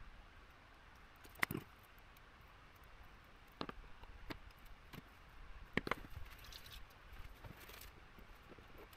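Sparse light clicks and taps of tweezers, a flux syringe and small parts being handled over a bare circuit board while placing surface-mount components. The sharpest click comes about a second and a half in, with a quick cluster near the middle and a faint rustle after it.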